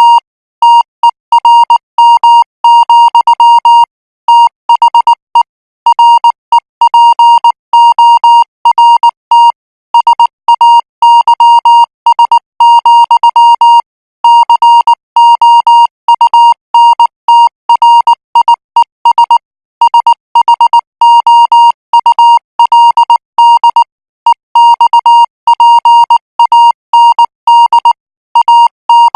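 Morse code practice signal sent at 18 words per minute: a single steady beep switched on and off in dots and dashes, with short gaps between letters and longer gaps between groups.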